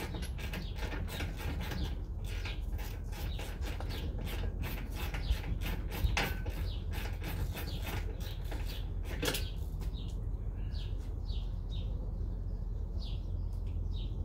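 Small birds chirping repeatedly over a steady low rumble, with two sharp knocks about a third of the way in.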